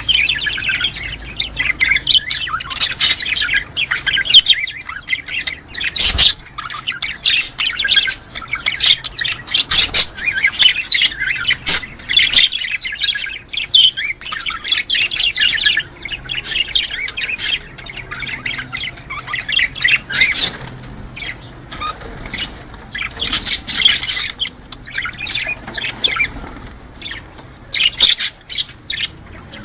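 A flock of small cage birds chirping and chattering without pause, many calls overlapping. This is a breeding-stimulation recording, played so that the males start to court and mate.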